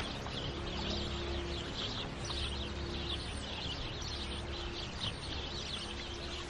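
Many small birds chirping continuously in quick short calls, over a faint steady low hum of outdoor ambience.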